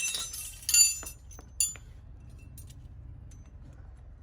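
Metal pieces clinking together: two sharp, ringing clinks within the first two seconds, the first the louder, followed by a faint low hum.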